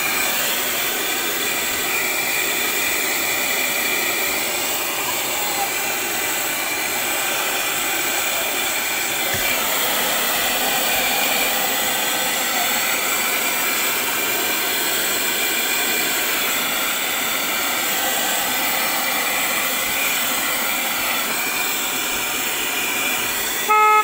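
Cigarette-lighter-powered Piranha handheld car vacuum running steadily, a rushing-air noise with a faint high whine, as its nozzle sweeps the car's floor carpet. A short, loud tone sounds just before the end.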